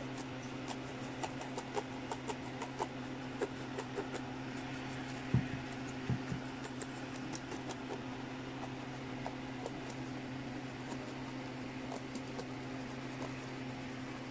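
Small brush scrubbing over a laptop's plastic casing to loosen dust: many light scratchy ticks, with two soft knocks about five and six seconds in, over a steady low hum.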